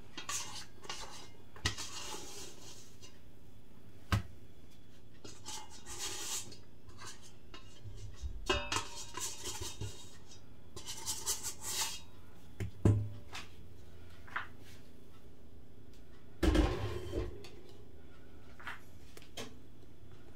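Scattered clinks, knocks and scrapes of kitchen handling as sticky bread dough is tipped from a mixing bowl onto a floured worktop. A few louder knocks come near the middle and about two-thirds of the way through.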